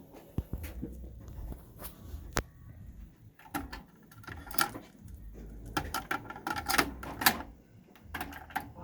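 Sony TC-WE475 dual cassette deck being operated by hand: a string of sharp mechanical clicks and clunks from its buttons and tape mechanism, loudest and most frequent in the middle of the stretch.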